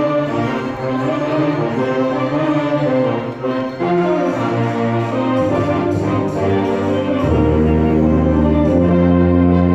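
A wind ensemble playing brass-heavy music, several instruments sounding stacked notes together. About seven seconds in, long deep low-brass notes, likely the tuba, come in and are held, and the music gets a little louder.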